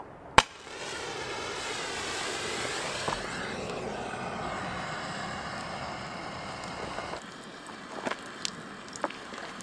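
A gas torch lighter clicks, then its flame jet hisses steadily into the firewood for about six seconds and cuts off abruptly, lighting the campfire. A few sharp snaps follow near the end.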